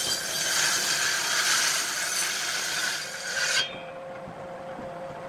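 Table saw ripping a thick pine block, a loud, even cutting noise. About three and a half seconds in the cut ends abruptly, and the blade keeps spinning freely with a steady, quieter motor tone.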